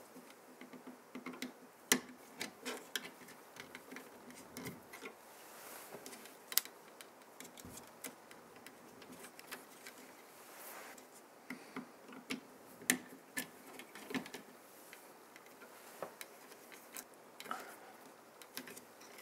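Faint, irregular small clicks and rustling of fingers handling stick-on paper labels and thermostat wires against a plastic wall plate, as the labels are wrapped around the wires.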